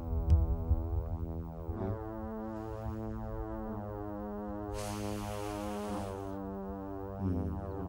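Background synthesizer music: slow, held chords that change every couple of seconds. A low rumble sits under the first two seconds, and a hissing swell rises a little before the five-second mark and lasts about a second and a half.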